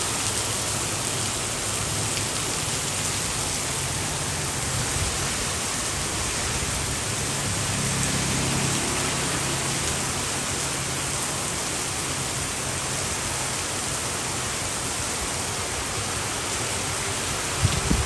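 Steady heavy rain falling on a city street, with a low vehicle engine hum under it through roughly the first half and a few thumps at the very end.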